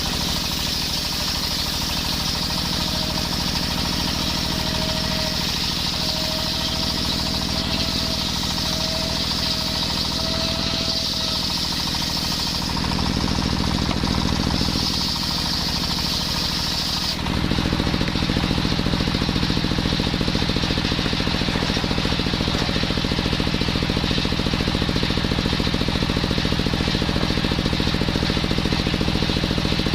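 Engine-driven circular saw running continuously while sawing coconut-palm wood, with a steady engine note and a strong high hiss. About halfway through, the hiss drops away and the engine note becomes steadier and louder.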